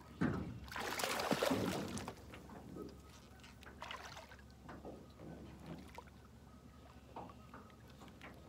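Handling noise from a spinning rod and reel: a louder rustle lasting about two seconds just after the start, then scattered small clicks and knocks as line and reel are worked by hand.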